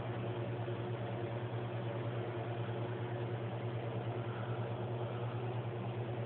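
Steady low hum with an even hiss over it, like a fan or appliance running.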